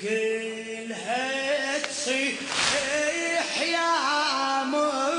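A man's voice singing a Shia latmiyya lament: long held notes that glide up and waver in ornaments.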